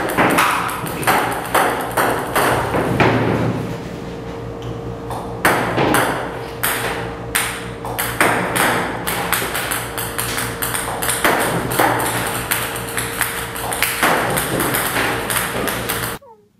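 Table tennis balls clicking as they strike and bounce on a table tennis table, sharp ticks coming irregularly about once or twice a second. The clicking stops abruptly near the end.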